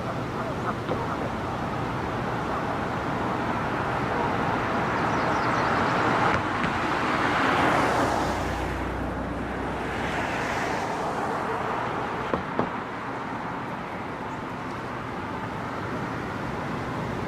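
Road traffic passing: the hiss of tyres and engine swells to a peak about eight seconds in and fades, with a second smaller pass just after. Two short clicks come about twelve seconds in.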